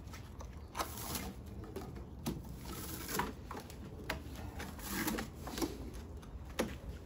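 Braided rope being pulled loose and slid off a taiko's stretching rig, a rustling rub of cord with scattered light clicks and knocks, about one every second.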